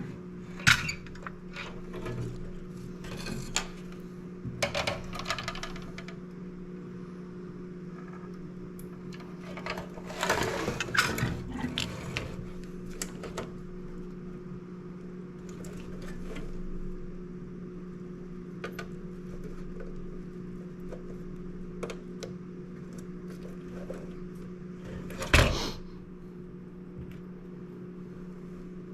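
Scattered small clicks, taps and rustles from working on a circuit board with hand tools while a diode is fitted and soldered, over a steady low electrical hum. One sharp click, the loudest sound, comes near the end.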